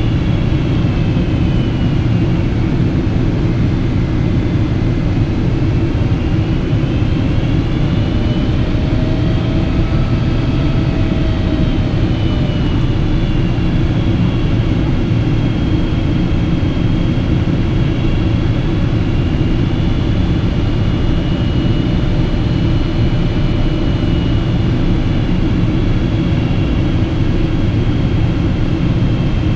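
Steady roar of cabin noise inside a Boeing 777-200 airliner in flight, with faint whining engine tones that drift slowly up and down.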